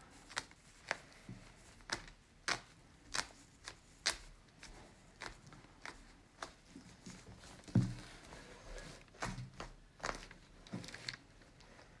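Feathers being plucked by hand from a dead tawny owl: a series of short, irregular rustling ticks, with a duller thump about eight seconds in.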